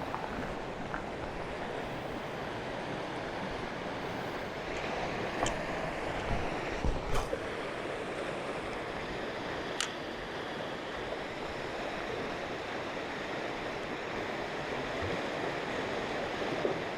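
Steady rush of flowing river water, with a few short clicks about five, seven and ten seconds in.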